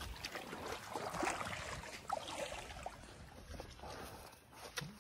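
Footsteps wading and sloshing through shallow floodwater, irregular splashes that die down to a quieter stretch about three seconds in.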